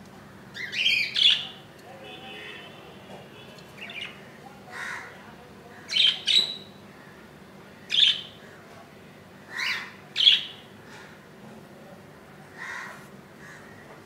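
Budgerigars giving short, harsh chirping calls, about ten in all, several in quick pairs: about a second in, about six seconds in and about ten seconds in.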